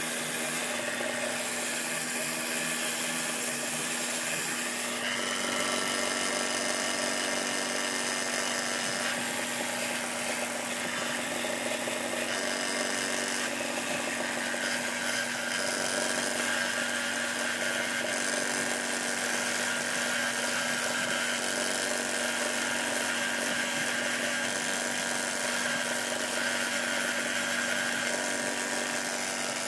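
Belt sander running steadily while the knife's fiber handle scales are pressed against the moving belt and ground down. The grinding tone shifts a few times as the work is pressed on and moved.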